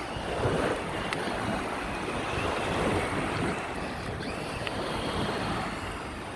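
Monster Jam Megalodon RC monster truck churning through shallow water, a steady rush of splashing with a faint electric motor whine that rises briefly about four seconds in.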